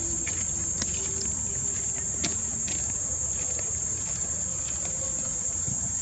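Steady high-pitched drone of insects, with a few faint clicks and taps.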